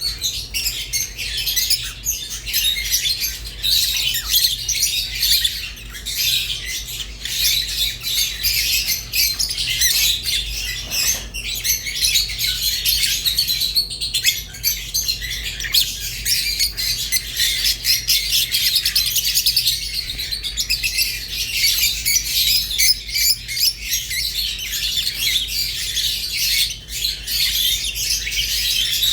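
Rosy-faced and Fischer's lovebirds chirping and chattering without a break, with quick high twittering and the odd squawk.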